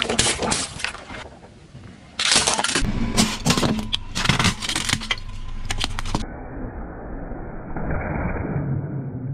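Car tyres slowly rolling over and crushing objects in a string of cut-together clips. Plastic pudding cups crack and squash in the first second. A dense run of cracks and crunches follows from about two seconds in. After a cut, duller, steadier crushing and rolling noise comes as a wheel presses down on a stack of paper.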